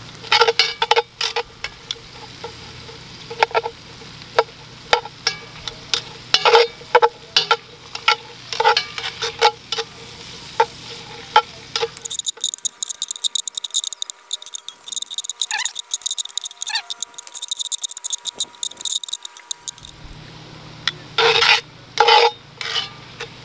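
Metal tongs scraping and clicking against a cast iron Dutch oven as sliced onions are stirred and sizzle in hot bacon grease and sausage fat. About halfway through the clatter stops for several seconds and a steadier sizzle is left, and the scraping comes back near the end.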